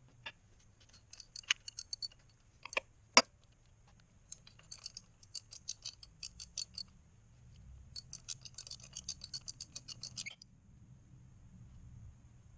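Ratchet wrench clicking in quick runs as the bolts are backed out of the Gold Wing GL1100 engine's timing belt cover, with a few sharp metal knocks in the first three seconds.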